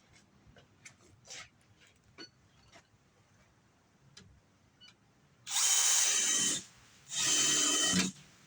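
Power drill run twice in short bursts of about a second each, a little after halfway through, after a few light clicks and knocks.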